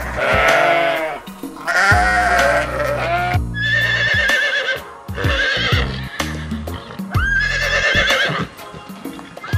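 Background music with a steady bass beat, overlaid by a series of about five wavering, pitched farm-animal calls, each about a second long.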